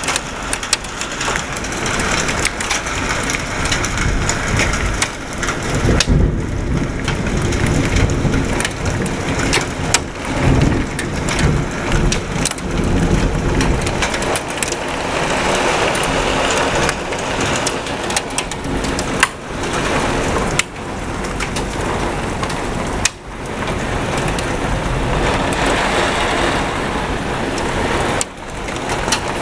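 Heavy rain pouring in a thunderstorm, a dense steady hiss scattered with many sharp taps of drops striking. A deep low rumble swells in the middle and fades.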